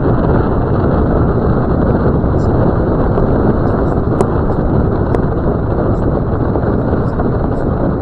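Land Rover Discovery 2 driving along a gravel road: a loud, steady rumble of engine and tyres on gravel, with scattered faint ticks and one sharp click a little after four seconds in.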